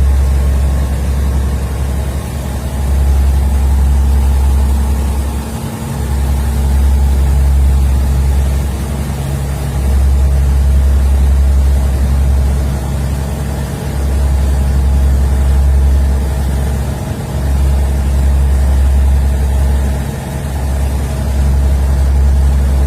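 Tugboat's diesel engine running steadily, a deep drone that swells and dips every few seconds.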